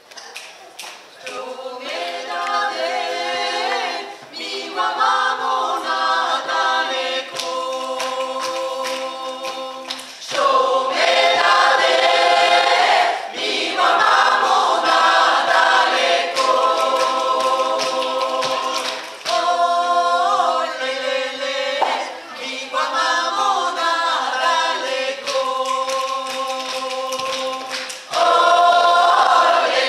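Mixed choir of women and men singing a cappella in several voices, holding sustained chords in phrases of a few seconds, with louder entries about ten, nineteen and twenty-eight seconds in.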